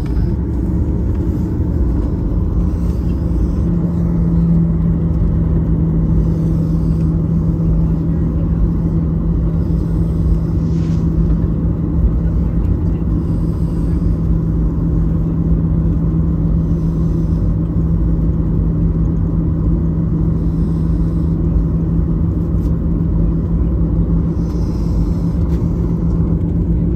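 Cabin noise of a Boeing 737 jet airliner taxiing on the ground: a steady low rumble from the engines at taxi power and the rolling wheels, joined about four seconds in by a steady hum that holds on.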